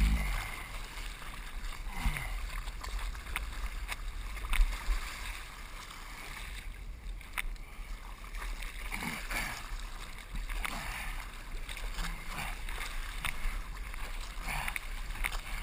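Sea water sloshing and splashing against a surfboard close to the microphone, in irregular bursts every second or two, over a steady low rumble of wind.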